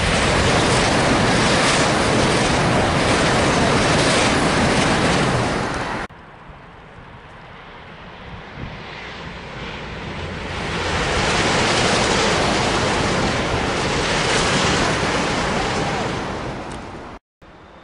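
Eurostar e320 high-speed train passing at speed, a loud, even rushing of wheels and air that cuts off suddenly about six seconds in. Then a second high-speed train crossing a viaduct: its rushing sound swells up over a few seconds, holds loud, and eases off before a sudden cut near the end.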